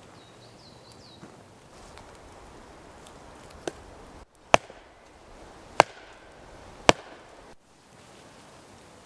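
Chopping: three sharp strikes about a second apart, with a lighter knock just before them.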